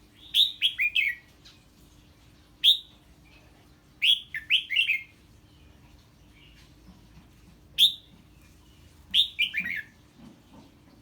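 Red-whiskered bulbul giving sharp, downward-sliding chirps, some single and some in quick runs of three or four, spaced a second or two apart. This is the agitated 'ché' calling a bulbul makes when it hears an unfamiliar bird.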